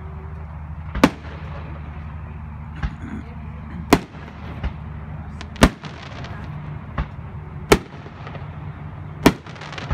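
Aerial fireworks shells bursting: about eight sharp bangs at uneven intervals, five of them much louder than the rest.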